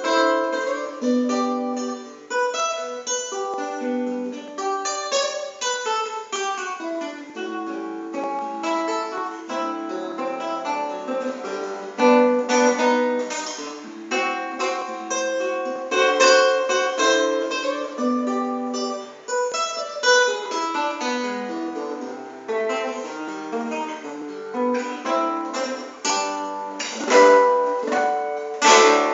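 Solo guitar playing a brisk Brazilian choro of plucked single-note runs and chords, with louder strummed chords near the end.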